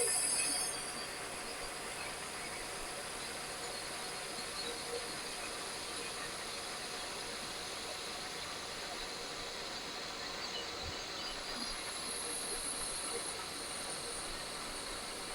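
Lathe running with the tool taking a power-fed turning cut along a polyurethane resin pen blank: a steady hiss of motor and cut, with a brighter high hiss at the start and again about twelve seconds in.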